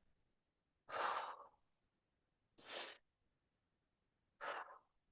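A woman breathing out hard three times through the mouth, about every second and a half to two seconds, while holding a high plank. These are controlled core-bracing exhales. The first breath is the longest and loudest.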